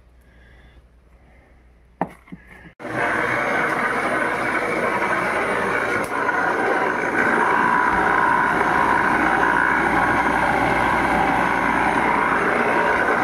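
Electric side-channel (regenerative ring) aeration blower running: a loud, steady rushing whir that comes in abruptly about three seconds in, after a few sharp knocks. It is noisy and is putting out a lot of air and pressure.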